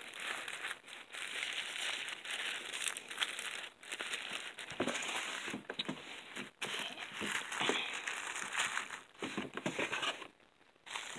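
Crinkling plastic wrappers of individually wrapped sanitary pads being handled close to the microphone, in irregular rustling spells with brief pauses and a short lull near the end.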